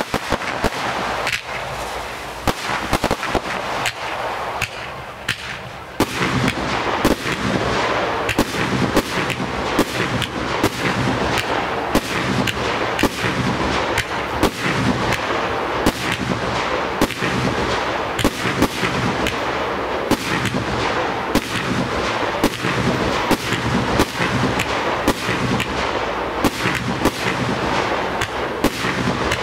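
Professional fireworks display: a rapid, irregular run of bangs from aerial shells and other devices firing and bursting, over a steady hiss. The bangs become denser and louder from about six seconds in.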